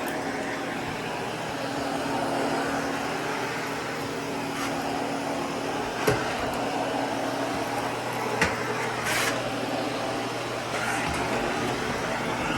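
Hoover Constellation Model 84 spherical canister vacuum running steadily, its motor hum dropping to a lower pitch about halfway through, with two sharp knocks about six and eight and a half seconds in.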